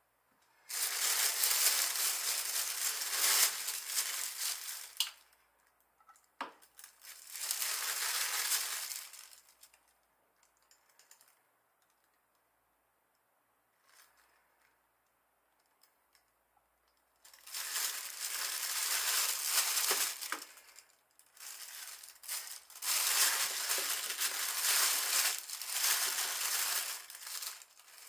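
Thin plastic shopping bag rustling and crinkling in several long stretches as vegetables are pulled out of it, with quiet gaps between and a single sharp knock about six seconds in.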